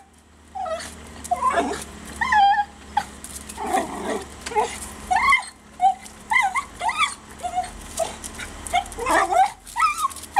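Small dog whining and yipping in a long string of short calls that bend up and down in pitch, several a second.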